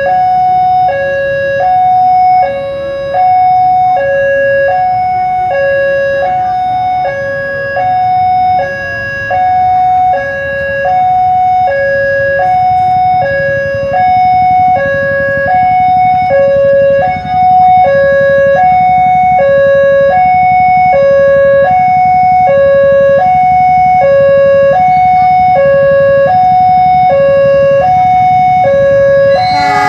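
Level-crossing warning alarm sounding a steady two-tone signal, high and low notes alternating about once a second, to warn that a train is coming. A low rumble grows under it from about halfway.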